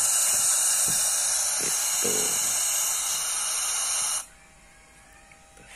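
Loud steady receiver hiss from the speaker of a boxed Icom IC-2N 2-metre FM handheld transceiver with its squelch open. It cuts off suddenly about four seconds in as a front-panel knob is turned.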